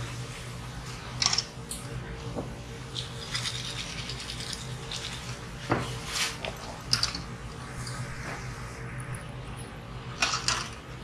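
Freshly fried ginkgo nuts and a small steel frying pan being handled over a wire draining rack: a few irregular sharp metallic clicks over a steady low hum.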